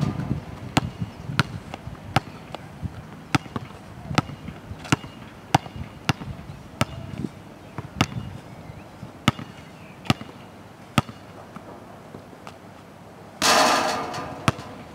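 Basketball dribbled on a hard outdoor court: a steady run of sharp bounces, about one every 0.7 seconds, that stops about three-quarters of the way through. Near the end comes a louder rushing noise lasting about a second and a half.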